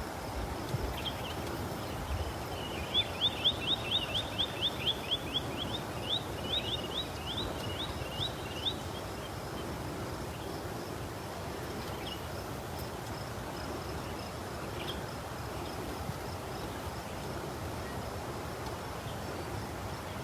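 A small bird singing a fast run of short, high, downward-slurred chirps for several seconds, quick at first and then spacing out, over a steady rush of wind and flowing water.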